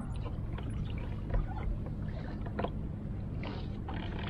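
Water lapping against a plastic fishing kayak's hull over a steady low rumble, with a number of light clicks and knocks scattered through.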